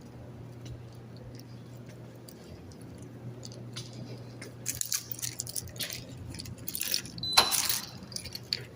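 Steady low hum. From about halfway in, a run of clicks, rattles and rustling handling noises, with the loudest clatter a little before the end.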